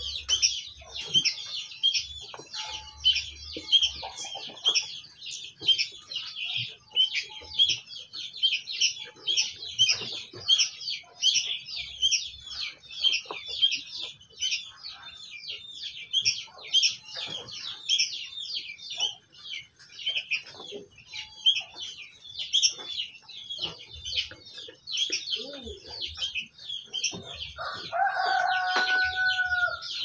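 Many birds chirping rapidly and without pause in a dense, high-pitched chorus, with a rooster crowing briefly near the end.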